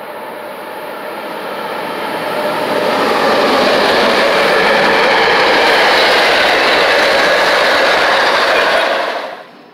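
MBTA commuter rail train of bilevel coaches passing at speed, its wheels rushing and clattering on the rails. It grows louder as it approaches, holds loud as the coaches go by, then cuts off suddenly near the end.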